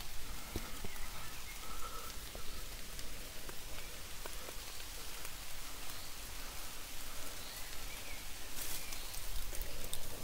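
Steady rain pattering on leaves and rock, with scattered light clicks and a brief scraping rustle a little before the end.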